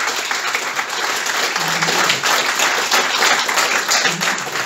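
A group of people applauding: many hands clapping in a steady, unbroken round.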